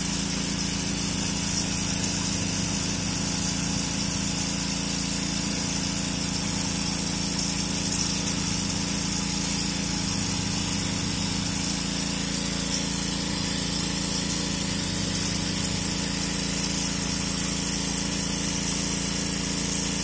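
Karcher 3,000 PSI, 2.5 GPM pressure washer running steadily at full flow, with the TH-40 tile spinner's jets spraying water into a covered 5-gallon bucket.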